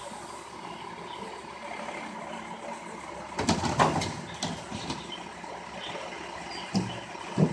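Recycling truck's diesel engine idling steadily. About three and a half seconds in, recyclables clatter for about half a second as a blue bin is tipped into the side-loading hopper of the Labrie Top Select body. Two short thumps come near the end.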